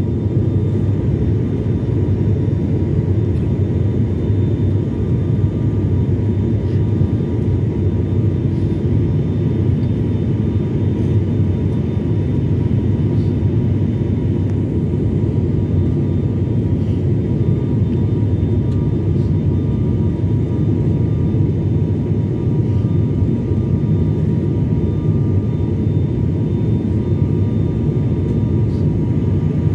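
Cabin noise of an ATR 72-600 twin-turboprop airliner in flight: a steady low drone from its propellers and engines, with faint steady tones above it.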